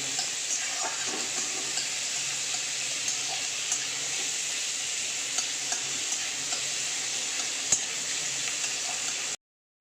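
Chopped onion frying in a little oil in a kadai, a steady sizzle, with light clicks of a spatula stirring against the pan and one sharper knock about three-quarters through. The sound cuts out abruptly just before the end.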